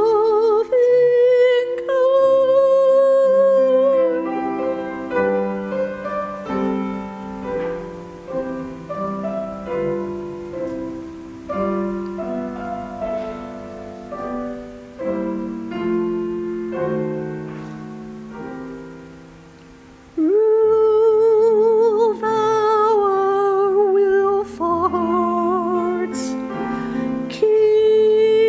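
A woman singing solo with vibrato to piano accompaniment. After about four seconds the voice stops for a piano interlude, and the singing comes back in about twenty seconds in.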